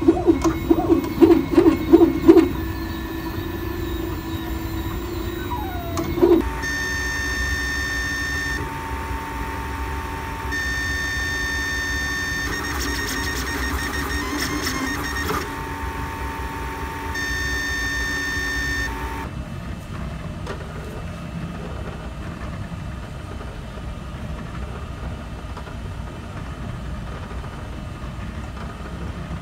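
Three desktop 3D printers printing in turn. First a MakerBot Replicator, with a quick run of pulses and then a steady whine that glides at about six seconds. Then a LulzBot Mini, whose motors whine in tones that come and go every couple of seconds. About nineteen seconds in, a Mod-T under its plastic cover takes over with a much quieter, even whir.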